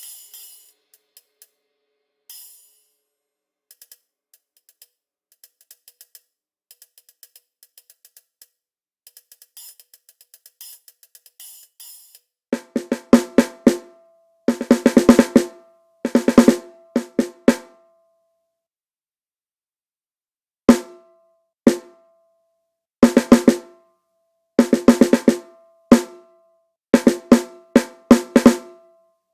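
Sampled drum kit from Addictive Drums 2 played as a sound check. For about twelve seconds there are only soft, sparse high ticks. Then come loud snare-drum rolls and fills in short phrases, separated by brief silences.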